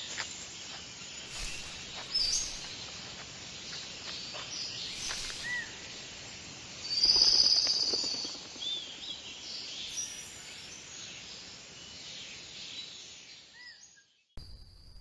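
Outdoor wildlife ambience from a trail camera's built-in microphone: a dense, high-pitched chorus of calling creatures with scattered short chirps, swelling loudest about seven seconds in. It cuts off suddenly near the end.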